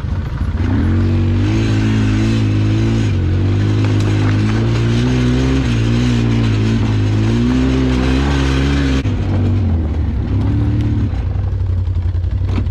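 ATV engine running at raised revs under load for about eight seconds, its pitch wavering a little. About nine seconds in it drops back to lower revs.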